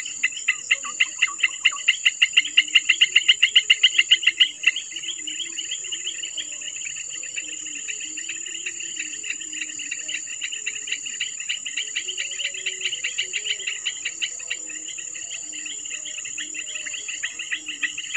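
Insects chirping in a rapid pulsed trill, loudest for the first four or five seconds and then softer but unbroken, over a steady high-pitched whine.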